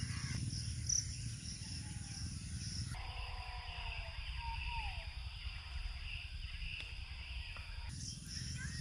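Outdoor field ambience: insects chirring steadily at a high pitch over a low rumble, with a few faint bird chirps about halfway through.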